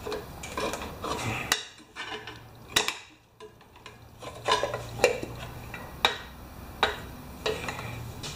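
Scattered sharp metal clinks and taps from bolts, tools and the valve cover being handled as the overhead-valve cover comes off a mower's Powermore engine, about eight irregular clicks.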